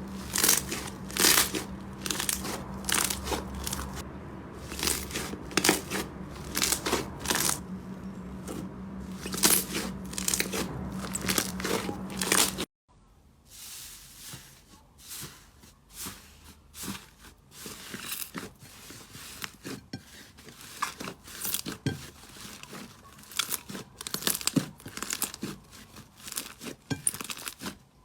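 Slime being squeezed and pressed by hand, giving a dense, irregular run of sharp crackles and pops over a steady low hum. About halfway through the sound cuts off abruptly and a quieter clip of similar crackling slime play follows.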